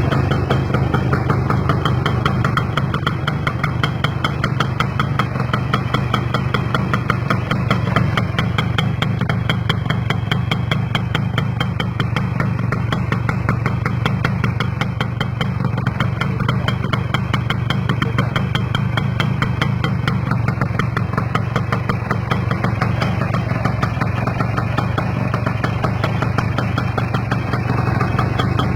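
Kawasaki GTO motorcycle engine idling steadily with a fast, even beat.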